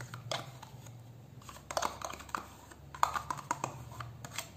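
Metal spoon scraping and tapping against a plastic yogurt pot as yogurt is scooped out, a quick run of small clicks in two clusters, over a faint low hum.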